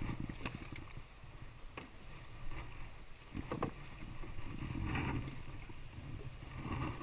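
Fish being handled in a boat hold heaped with fresh catch: scattered knocks and rustles, a sharper knock about three and a half seconds in, over a steady low rumble.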